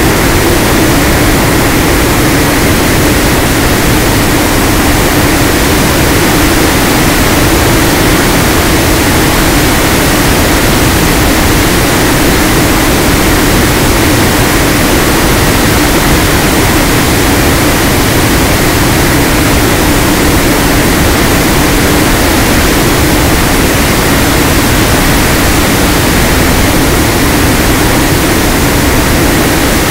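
Onboard audio of an FPV model plane in flight: loud, steady wind rush over the microphone, with the propeller's hum wavering slightly underneath.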